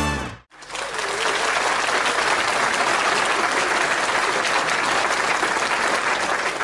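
A guitar music sting cuts off about half a second in, followed by steady crowd applause.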